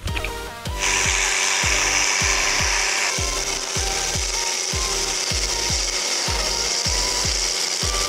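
Electronic music with a steady kick drum about twice a second. About a second in, a loud, harsh hiss comes in over it and holds.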